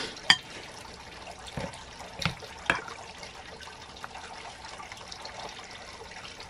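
Garden fountain trickling steadily, with a few light clicks of a spoon and fork against a ceramic bowl.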